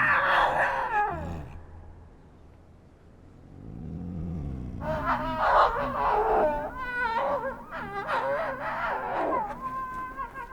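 Snow leopards calling while paired for mating: a falling yowl at the start, then from about five seconds in a long run of wavering, wailing calls.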